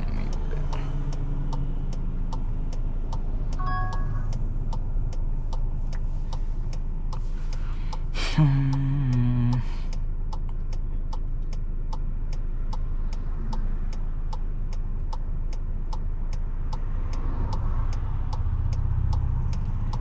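Inside the cabin of a 2024 Volkswagen Tiguan 2.0 TSI, the engine runs with a steady low hum under an even ticking of about two to three ticks a second. About four seconds in there is a short high two-note chime. About eight seconds in a sudden louder sound comes with a low tone that steps down in pitch for about a second.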